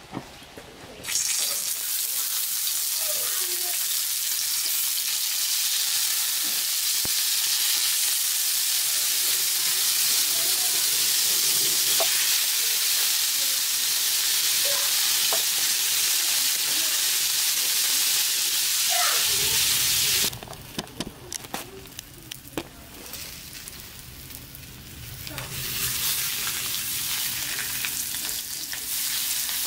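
Bratwursts sizzling in a frying pan over a small wood fire, a steady loud sizzle. It cuts off suddenly about two-thirds of the way through and comes back more faintly near the end.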